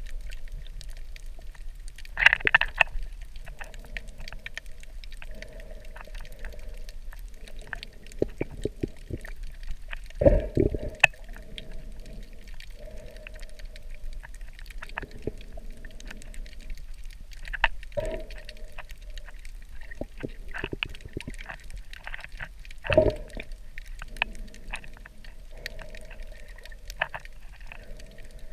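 Underwater reef sound picked up by a camera in its waterproof housing: a steady muffled wash of water with many scattered sharp clicks. Louder rushing bursts of water come a few times, about 2, 10, 18 and 23 seconds in.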